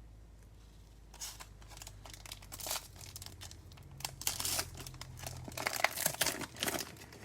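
Wrapper of a Prizm baseball card pack crinkling and tearing as it is opened by hand, a run of irregular crackly rustles starting about a second in.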